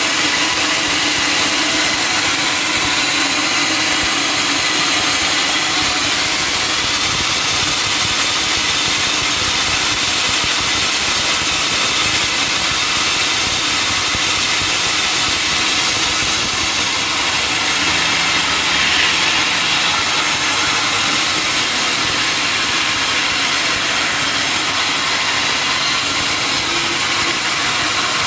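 Sawmill saw running steadily through a teak log: a loud, constant hiss with a steady machine drone underneath.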